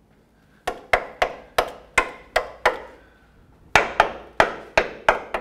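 Screwdriver tip jabbing and tapping along a rusted steel pickup-truck frame, probing whether the metal is still solid or rotted through. Two quick runs of about seven sharp taps each, separated by a pause of about a second.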